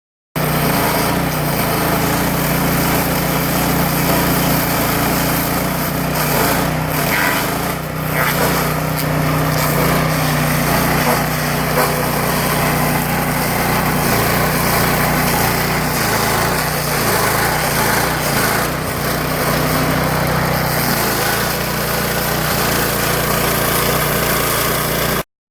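Power King PK0803 stump grinder's small petrol engine running steadily at high speed while its toothed cutter wheel grinds into a stump. Brief dips and rough scraping bursts come as the teeth bite into the wood.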